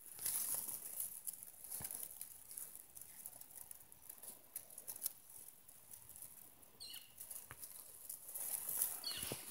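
Dry grass and weed stems rustling and crackling against a phone pushed in among them, with many small sharp clicks, busiest in the first second and again near the end.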